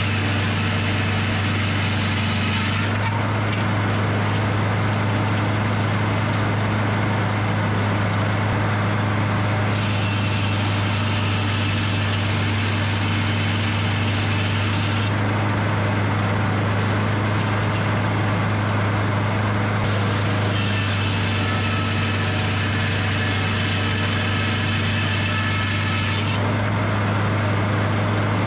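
Edmiston hydraulic circle sawmill running: a steady engine drone throughout, with a loud hissing saw noise that comes in for stretches of several seconds and drops away again, as the blade cuts through logs and runs free between cuts.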